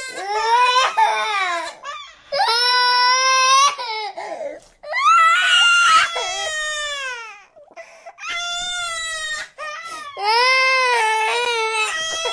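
Cartoon child characters crying: a series of high, wavering wails and sobs, each cut off abruptly before the next begins.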